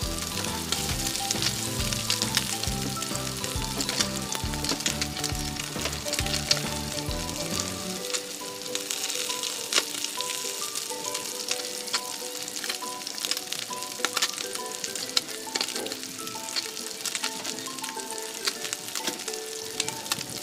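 Small whole fish frying in hot oil in a wok, a steady sizzle dotted with sharp popping spatters. Background music plays underneath, its bass dropping out about halfway through.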